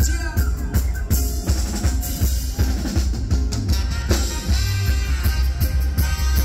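Live band playing: drum kit and bass guitar keeping a steady beat under electric guitar and percussion, with no singing.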